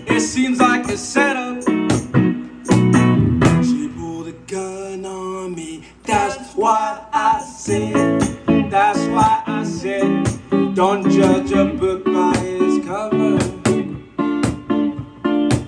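Music: a song with guitar, a beat and a singing voice.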